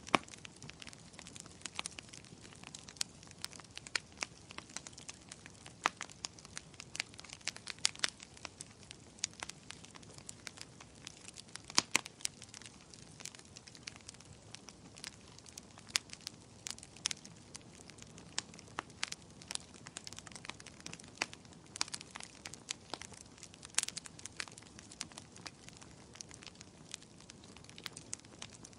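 Wood fire burning, with frequent sharp irregular crackles and pops over a soft steady hiss of flames.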